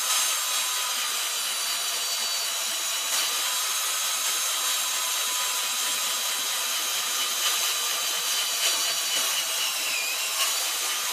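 Cordless drill running steadily with a twist bit cutting through a thin sheet of metal: a continuous motor whine over the hiss of the cut, at a fairly steady pitch that dips briefly near the end.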